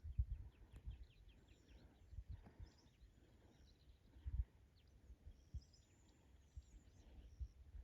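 Quiet outdoor ambience with a bird chirping faintly: a quick run of short high notes near the start, then scattered ones. A few brief low thumps come and go.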